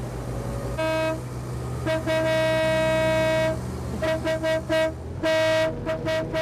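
Boat horn tooting in a pattern: a short toot, then a long blast of about a second and a half, then a string of quick toots and another long one, over the low steady hum of a boat engine.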